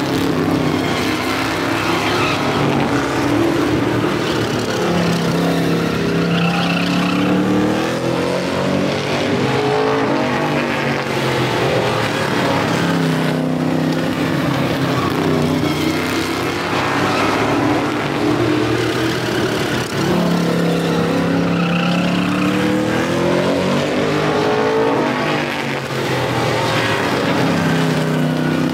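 Street stock race cars running at speed around a short oval. Several engines sound at once, their pitch dropping into the turn and climbing again as they accelerate past, rising and falling about every fifteen seconds as the field comes round each lap.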